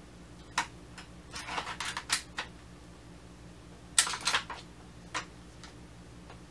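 Bolt of a Tokyo Marui L96 AWS spring-powered airsoft rifle being worked by hand: metal-and-plastic clicks and clacks as the action is cycled and the spring re-cocked. There is a cluster of clicks a little after the start, the loudest clack with a short rattle about four seconds in, and a last single click.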